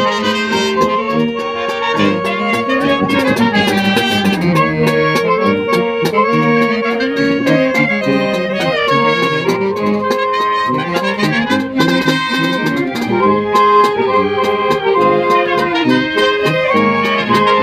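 Banda de música (brass band) playing live: trumpets and saxophones carry the melody over sousaphones moving through the bass line, with a steady beat of percussion.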